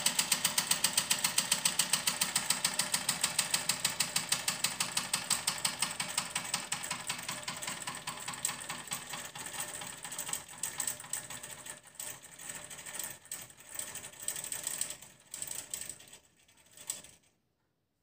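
1954 Fleischmann 125/2 toy steam engine running with fast, even beats at about seven a second, which slow, weaken and turn irregular as the engine runs down, stopping shortly before the end.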